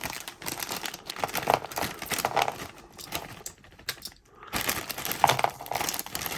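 Plastic bag crinkling as it is handled, with irregular crackling and light clicks and a short lull about three and a half seconds in.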